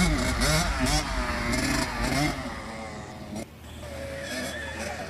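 A 65 cc two-stroke motocross bike's engine revving up and down in quick surges as it is ridden, a little quieter after about three and a half seconds.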